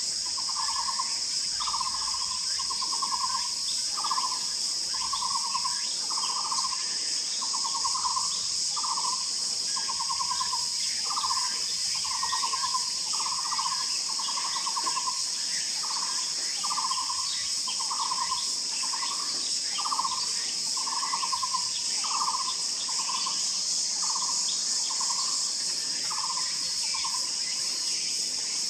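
A barbet calling a long series of short, hollow trilled notes, about one a second, over a steady high-pitched insect chorus.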